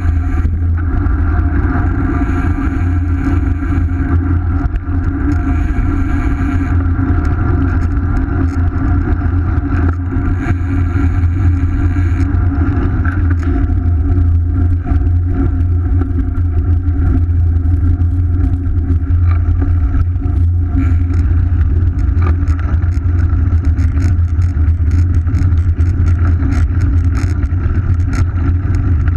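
Steady wind rush and low rumble on a bicycle-mounted action camera's microphone as the bike rolls along at speed, with tyre and road noise under it.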